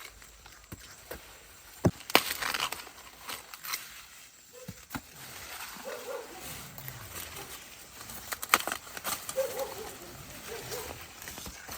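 Corn leaves and stalks rustling and crackling as ears of corn are snapped off by hand, with sharp snaps about two seconds in and again past the middle.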